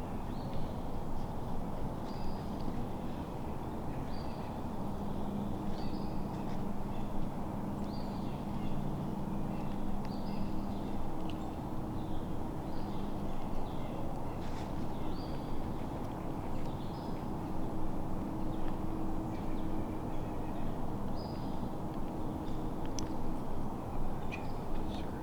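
Outdoor woodland ambience: a steady low rumble of road traffic with a faint hum, and small birds chirping in short calls now and then.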